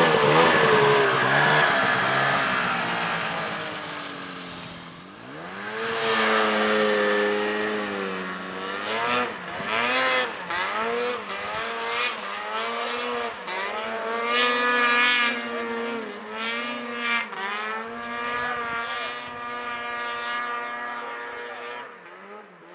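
Snowmobile engine revving hard as the sled pulls away and climbs a steep snowy slope, its pitch rising and falling again and again with the throttle. The sound fades near the end as the sled gets farther off.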